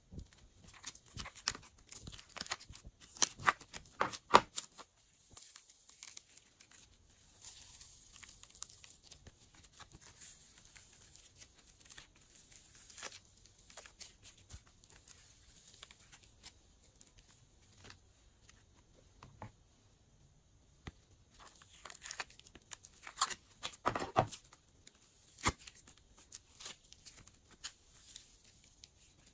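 Glossy slime being squished, stretched and poked by hand: sticky clicks, pops and crackling. They come in dense runs near the start and again a little over twenty seconds in, with softer crackling between.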